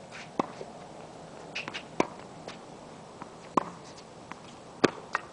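Tennis ball being hit by rackets and bouncing on a hard court during a rally: sharp pops about every second and a half.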